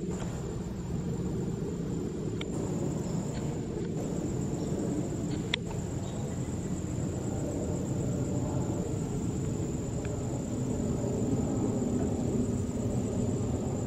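A UPS Airbus A300-600 freighter's jet engines as it climbs out overhead after takeoff: a low, steady rumble that grows a little louder near the end. A thin, steady high insect trill runs through it.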